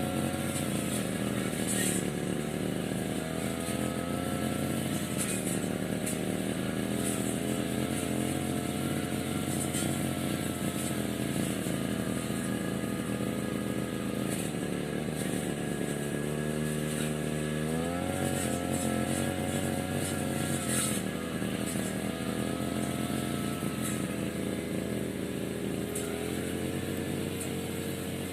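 Small petrol engine of a grass cutter running steadily at speed. About two-thirds of the way through it drops to a lower speed for a couple of seconds, then revs sharply back up, and eases down somewhat near the end.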